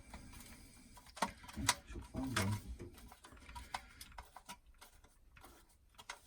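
Scattered light clicks and taps from handling the plastic wall socket and its wiring during installation.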